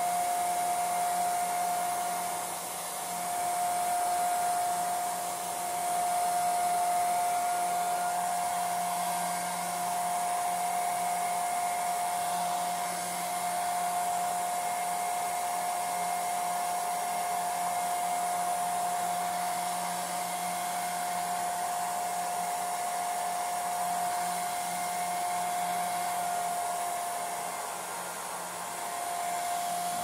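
Handheld hair dryer running steadily: a rush of air with a constant high motor whine, the level swelling and dipping slightly as the dryer is moved about.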